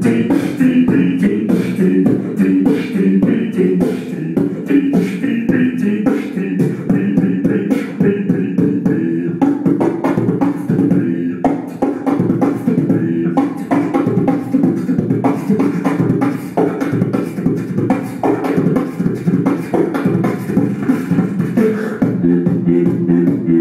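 Beatboxing through a handheld microphone: a steady run of rapid drum-like kicks, snares and clicks, with pitched low bass tones hummed under the beat.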